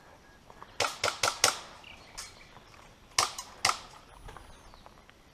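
Airsoft guns firing single shots, sharp pops: four in quick succession about a second in, a fainter one after that, then two more a little past three seconds.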